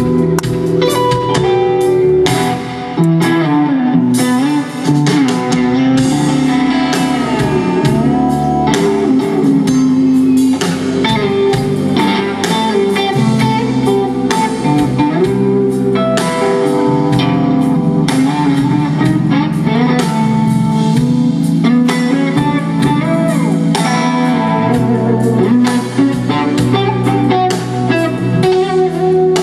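Live rock band: a lead electric guitar played through Legacy amp stacks, holding and bending melody notes with vibrato over electric bass and drums.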